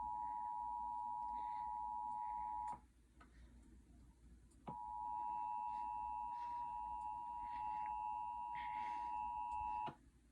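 Emergency Alert System attention signal, the steady two-tone alarm, heard through a TV speaker. It sounds for about three seconds and cuts off, then starts again about two seconds later and holds for about five seconds, with a faint higher whine alongside. It announces the coordinated Required Monthly Test, whose spoken message follows.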